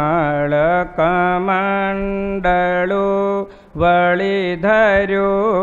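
A man chanting Gujarati devotional verse to a slow, drawn-out melody. He holds long notes with wavering ornaments and pauses briefly for breath between phrases.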